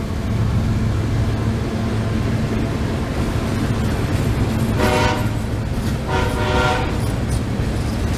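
Freight train cars rolling past close by, a steady rumble of steel wheels on rail, with two blasts of a train horn about five and six seconds in.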